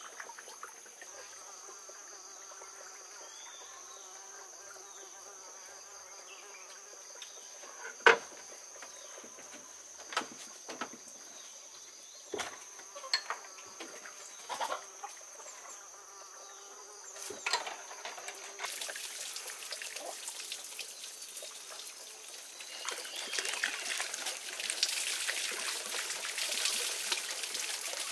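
A steady high-pitched insect drone with a few sharp knocks and clicks scattered through the middle. About two-thirds in, the drone gives way to a rising hiss of running or pouring water.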